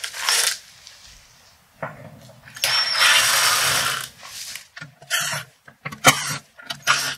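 Ryobi cordless driver backing screws out of a sheet-metal control panel: a short run at the start, a longer run of about a second and a half from about two and a half seconds in with a steady high whine, then a few brief bursts near the end.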